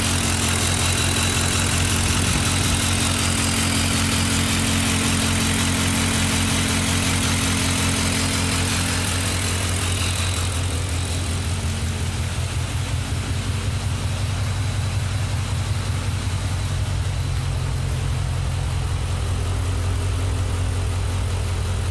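V-type car engine idling with a misfire and a ticking from the cylinder 3 valvetrain that a full bottle each of Seafoam and Rislone has not cured; the owner takes it for a bent valve. About ten seconds in the sharper, higher part of the sound fades, leaving mostly the low, even beat of the idle.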